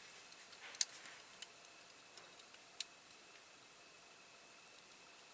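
A few faint, sharp clicks and taps of small diecast toy-car parts being handled and fitted together, the sharpest about one second and three seconds in.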